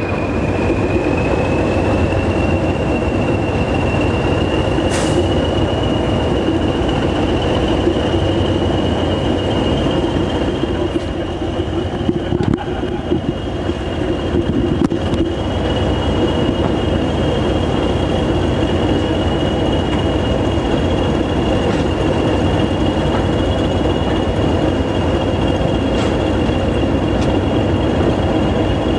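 A pair of English Electric Class 20 diesel locomotives, with their eight-cylinder English Electric engines, running hard while hauling a train. A steady high whistle rides over the engine noise, rising slightly in pitch over the first few seconds and then holding steady.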